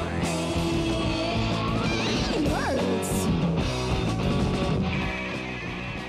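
Guitar-led intro theme music playing under a title card, with a sliding swoop up and down in pitch about halfway through.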